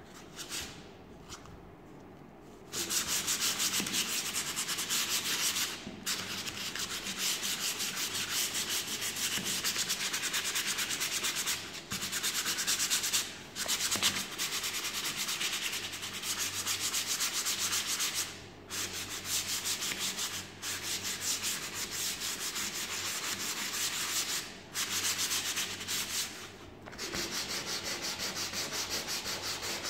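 A flat plywood part of a UGEARS wooden model kit being sanded by hand in rapid back-and-forth strokes. The sanding starts about three seconds in and runs in several spells broken by brief pauses.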